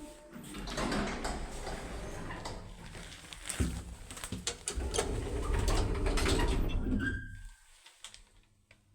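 Old MLZ passenger lift's sliding doors and mechanism clattering in a stream of knocks and rattles over a low rumble, which cuts off about seven and a half seconds in.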